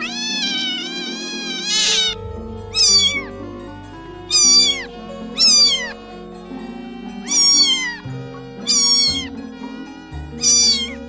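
A cat meowing: one long, high-pitched meow of about two seconds, then six short meows that each fall in pitch, over light background music.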